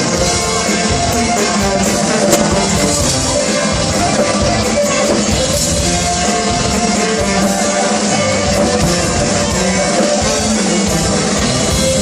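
Rock music with drums, guitar and singing at a steady level.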